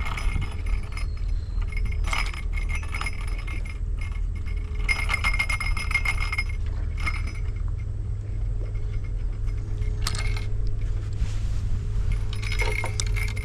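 Light metallic jingling and clinking in several spells, with short ringing notes, over a steady low hum.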